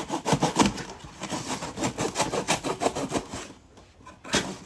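A shipping package being torn and pulled open by hand: quick, rapid scraping and rubbing strokes, with a short pause near the end.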